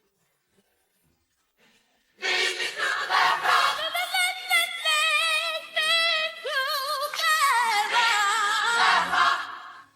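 Gospel singing a cappella, no instruments: after about two seconds of silence the voices come in, with wavering vibrato and melodic runs, and fade out just before the end.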